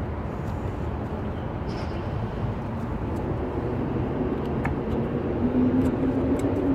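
Steady low outdoor rumble with a steady hum that grows louder over the second half. Over it, a few faint light clicks as a new brake pad is set into the caliper bracket.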